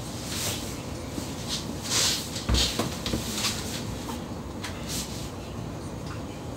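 Cabin noise inside a glass-roofed canal tour boat under way: a steady low running noise, with repeated short hissing swishes and a dull thump about two and a half seconds in.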